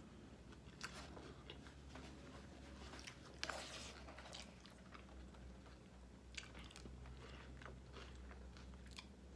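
Faint, close-up chewing of a mouthful of salad, with small wet clicks and crunches and one louder crunch about three and a half seconds in.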